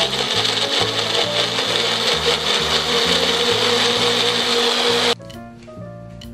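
Magic Bullet personal blender running loud and steady as it purees orange segments into juice, then cutting off suddenly about five seconds in. Soft background music plays underneath and is left alone after the motor stops.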